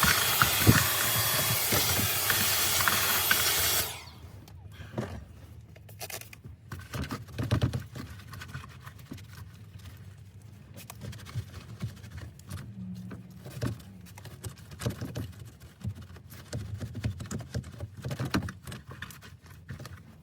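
A vacuum cleaner running with a steady high whine, switching off abruptly about four seconds in. After that come scattered light knocks and clicks of parts being handled.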